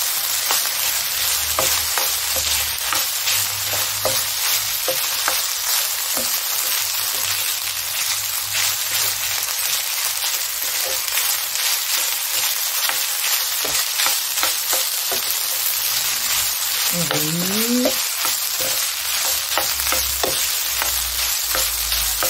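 Fried rice with diced carrots and soy and oyster sauce sizzling in a hot non-stick frying pan, stirred and turned with a wooden spatula that scrapes and taps against the pan in many short clicks over a steady sizzle.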